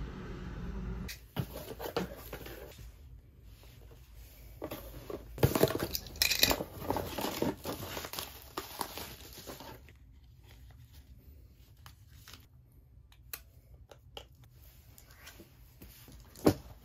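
Plastic bubble wrap and packaging crinkling and tearing as a cardboard parcel is unpacked, loudest around five to seven seconds in. After a first second of low steady street hum, and once the unwrapping stops, only scattered light clicks and knocks of items being handled, with one sharp knock near the end.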